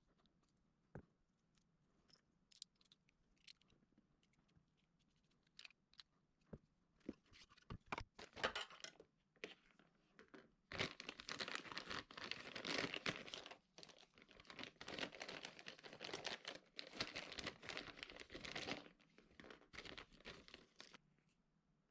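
Scattered small clicks and knocks, then about eight seconds of dense crinkling, rustling handling noise with short breaks.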